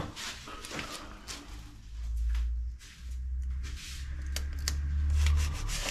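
Rustling and light clicks of a sticker being handled and pressed onto a board by hand, over a low rumble of handling noise on the microphone.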